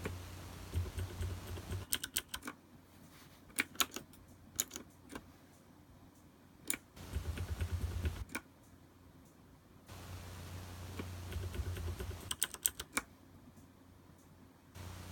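Keys of a MantisTek GK3-61 mechanical keyboard with Cherry switches being typed in a few short bursts of clicks, with pauses between the bursts.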